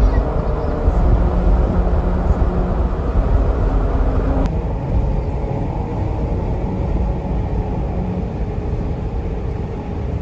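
A vehicle running on a road: steady low engine and road noise, the high end going duller from about four and a half seconds in.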